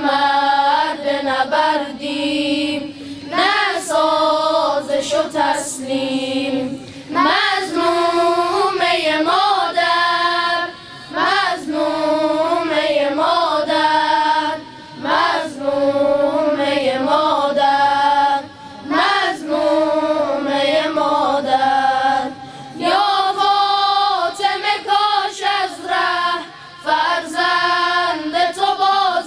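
A boys' choir singing a devotional chorus (madih) together, in sung phrases of a few seconds with short breaks between them.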